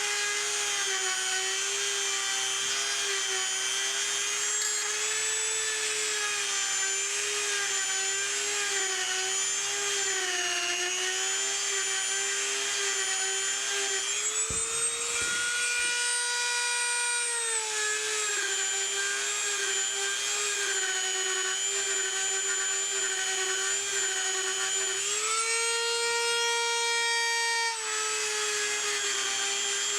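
Dremel rotary tool running at high speed, grinding out a wheel's hex bore: a steady, slightly wavering whine. Twice, once around the middle and once near the end, the pitch rises for a few seconds and then drops back.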